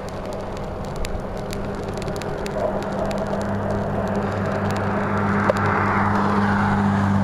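A motor vehicle's engine on the adjacent highway, a steady low hum growing louder through the second half as it approaches. Rushing noise and scattered sharp clicks come from the moving bicycle.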